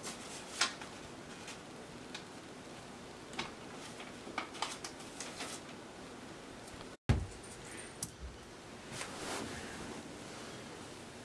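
Handling noises over a steady hiss: scattered light taps and clicks, then after a brief dropout a single heavy thump, followed by a knock and a soft rustle.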